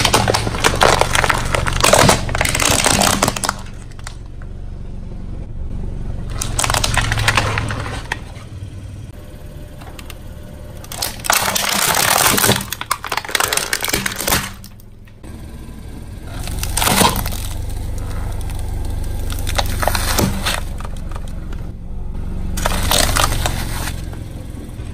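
Hard plastic toys cracking and breaking under a car tyre as it rolls over them: several bouts of crunching and snapping, each a second or more long, over a steady low rumble from the car.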